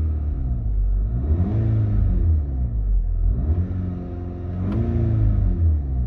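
MK6 Volkswagen GTI's turbocharged 2.0-litre four-cylinder, breathing through a COBB SF intake with the airbox open and an aftermarket dump pipe, revved up and let back down about three times, heard from inside the cabin. It gives a bit of a roar.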